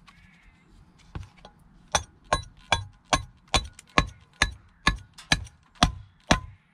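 Billhook chopping at the edges of a small wooden block set on a chopping log, chamfering them off. About a dozen short, sharp chops come at an even pace of two or three a second, starting about two seconds in.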